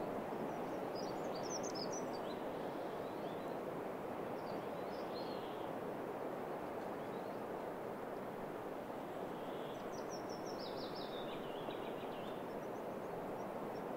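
Songbird singing two short phrases, one about a second in and another around ten seconds in, the second a trill that falls in pitch. Under it runs a steady rushing background noise.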